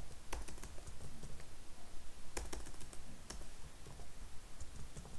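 Computer keyboard being typed on in short, irregular runs of keystrokes.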